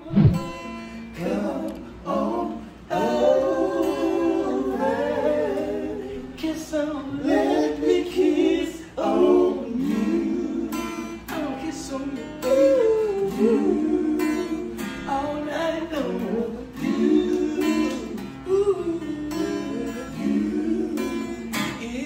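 Acoustic blues on a steel-string acoustic guitar, strummed and picked, with a man's voice singing along.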